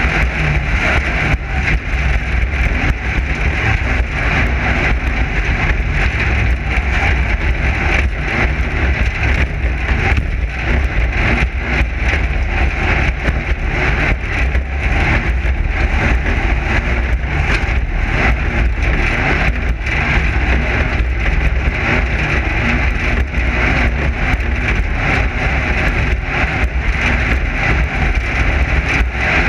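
Class 9 desert race car running at speed over rough desert terrain: a continuous loud engine and drivetrain rumble with frequent short knocks and rattles from the car's chassis and suspension.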